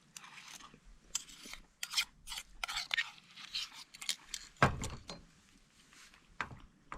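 A quick run of short clicks and rustles, like things being handled close by, then a dull thump just past halfway and a lighter one near the end.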